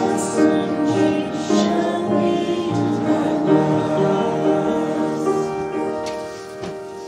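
Voices singing a hymn with keyboard accompaniment, held notes fading away toward the end.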